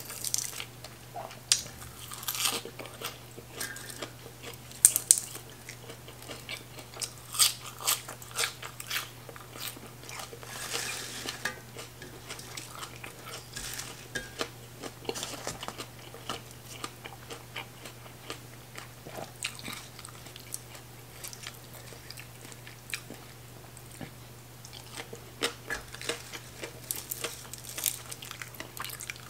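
A person eating close to the microphone: crisp, irregular crunching and chewing of lettuce-wrapped papaya salad and fried sour fish. The louder crunches come every few seconds.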